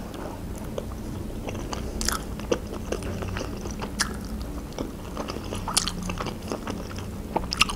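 A woman eating: chewing food, with scattered short, sharp, wet mouth clicks, a few of them louder than the rest.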